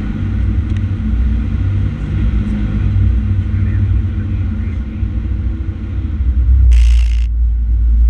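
Fire engine's diesel engine rumbling, heard from inside the cab while driving, with a short burst of hiss about seven seconds in.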